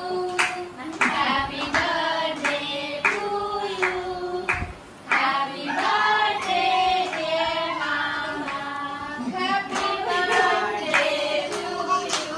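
Several voices singing a song together while hands clap along in time, about two claps a second, with a brief break near the middle.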